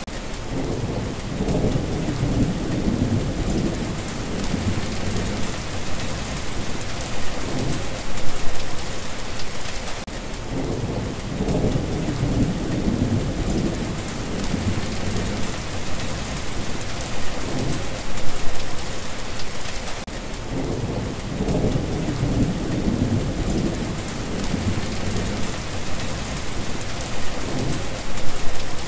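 Steady rain with rolling thunder: low rumbles swell and fade roughly every ten seconds over the even hiss of the rain.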